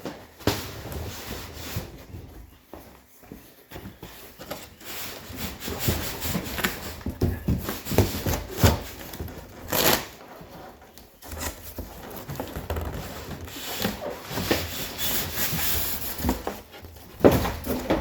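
Heavy cast-iron table saw and its cardboard packaging being wrestled and shifted by hand: irregular scraping and rubbing with scattered knocks, and a few harder thumps, the loudest near the end.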